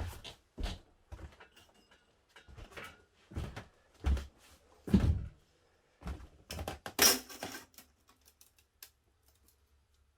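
A string of irregular knocks and clunks from objects being handled and set down, with a brief scraping rustle about seven seconds in, then only a faint low hum.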